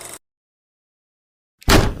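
A faint steady whirr cuts off abruptly, then dead silence, then a single loud gunshot-like blast near the end.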